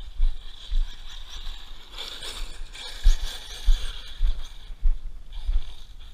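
Brushless electric motor of an ARRMA Siren 6S BLX RC truck whining as it is throttled across gravel, the pitch sweeping up and down about two seconds in. Under it run regular low thuds about every half second, which are the loudest sounds.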